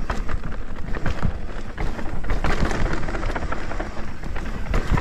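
Mountain bike riding down a rough dirt trail: a continuous rumble of tyres and chassis with many small knocks and rattles from the bumps.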